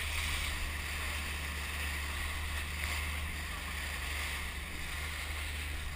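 River water rushing and splashing against the bow tubes of an inflatable raft as it runs through rough water: a steady wash of water noise with a constant low rumble underneath.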